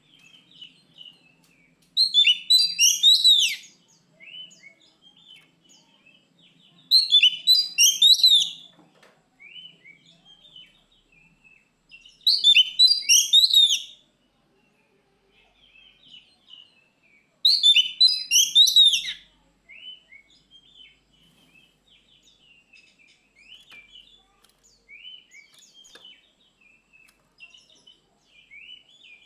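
Oriental magpie-robin (kacer) singing: four loud bursts of rapid, high-pitched song, each lasting under two seconds and coming about every five seconds, with quieter short chirps in between.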